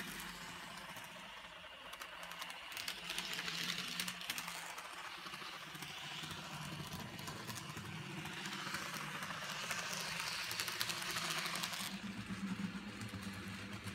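Graham Farish N gauge Class 42 Warship model locomotive running along the track, its wheels making a fast, uneven clicking rattle over the rail joints and pointwork, over a low steady hum.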